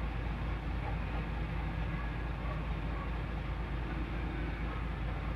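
A steady low rumble with an even hiss above it.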